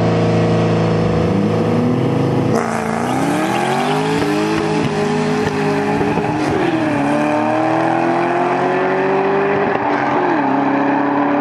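Boosted Ford Mustang and BMW accelerating hard in a street race. About two and a half seconds in the engines go to full throttle, and the engine pitch then climbs and drops back with each upshift, about five, six and a half and ten seconds in.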